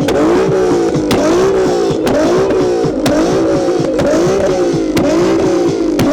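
A car engine being revved over and over, the pitch climbing and dropping about once a second, with a sharp pop at each cycle.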